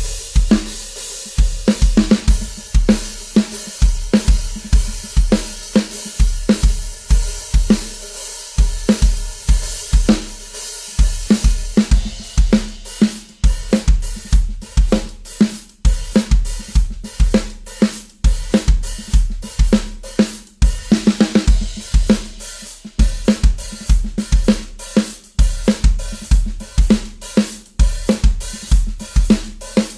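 Drum-heavy recorded music played back through loudspeakers for a sound test: a steady kick-drum beat with snare, hi-hat and cymbal strokes.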